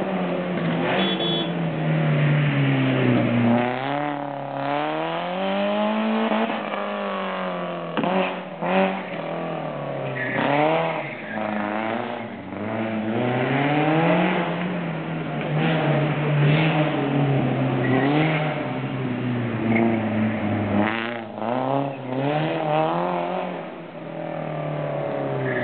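Peugeot 306 S16 rally car's 16-valve four-cylinder engine under hard driving, revving up and dropping back again and again as it accelerates, shifts and lifts off.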